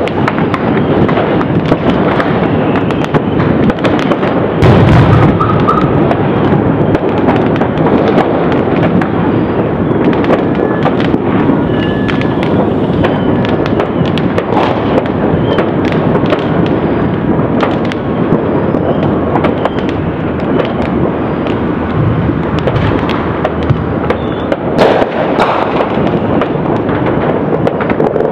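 New Year's fireworks and firecrackers going off all over a city at once: a dense, unbroken crackle of pops and bangs, with a heavier deep boom about five seconds in and another sharp bang near the end.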